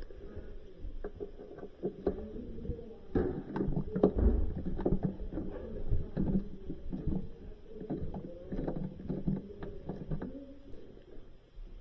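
Irregular knocks, clunks and scraping of parts being handled and fitted, busiest in the middle stretch.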